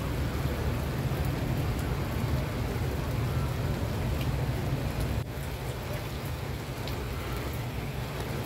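Steady rain falling and splashing on a wet, puddled stone-paved plaza, as an even hiss with occasional nearby drop ticks over a steady low rumble. The level drops a little about five seconds in.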